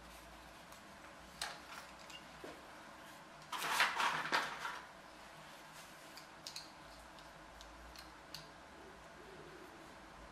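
Hands working balsa kit parts on a plastic-covered building board: a short burst of rustling and scraping about three and a half seconds in, with light clicks and taps scattered around it.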